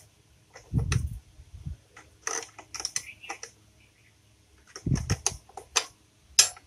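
Metal clicks and knocks of a spanner working a motorcycle's chain adjuster nut as it is tightened to draw the rear wheel back and take up chain slack. The clicks come in short clusters about a second in and again around five seconds in.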